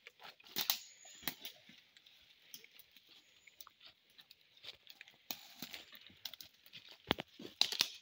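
Footsteps crunching and rustling through dry leaf litter and twigs on a forest trail, a run of irregular crackles, loudest near the end, over a steady high hiss.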